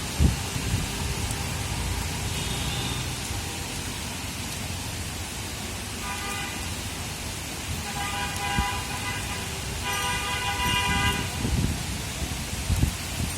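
Steady rain, with a horn-like tone sounding three times in the second half, each lasting about a second.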